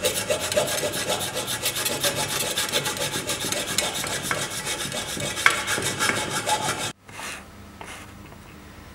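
Compass saw rasping back and forth in quick strokes, cutting slits into a seized aluminium seat post inside a steel bike frame to free it. The sawing stops abruptly about seven seconds in, leaving only faint background.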